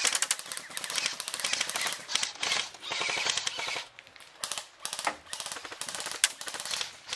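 Airsoft electric rifles firing full-auto bursts, a fast clicking rattle. It is dense for the first few seconds, then thins to short bursts and single shots.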